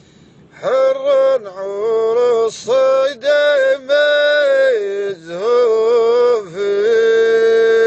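A man's voice singing a slow, unaccompanied chant-like melody, with long held notes and small ornamental turns, coming in just under a second in and ending on a long steady note.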